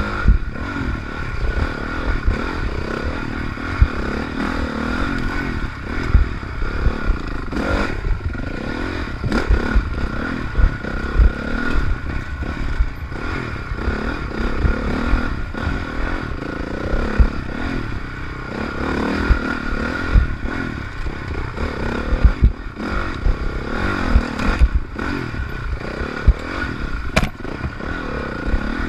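Honda CRF450R dirt bike's single-cylinder four-stroke engine revving up and down as the throttle is worked on and off, with frequent thumps and rattles from the bike jolting over rough ground.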